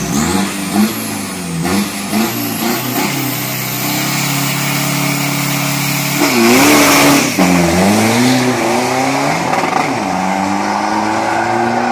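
Isuzu D-Max pickup's 2.5-litre diesel engine revving on the drag strip start line, the revs bobbing up and down and then held steady. About six seconds in it launches with a loud burst of noise and pulls away. The engine note climbs, drops at a gear change near ten seconds, and climbs again.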